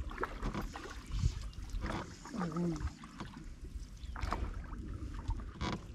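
Water lapping against the hull of a small fishing boat, with a few light knocks against the boat.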